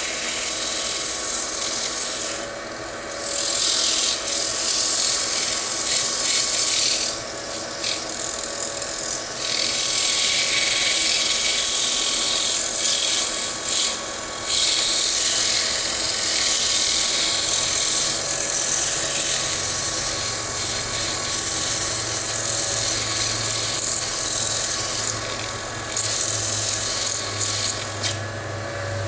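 Abrasive sanding a wooden bowl as it spins on a lathe: a steady hissing rub in long passes with short breaks, over the lathe motor's steady whine. A low hum joins in about two-thirds of the way through.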